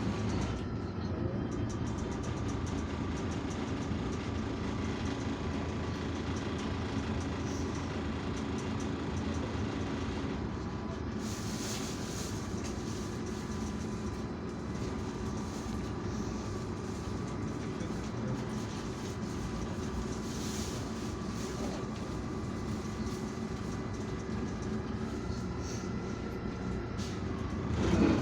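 Interior of an Irisbus Citelis 12M city bus under way: a steady drone of the engine and road, with a faint whine and light rattles of the body and fittings. A brief louder knock comes at the very end.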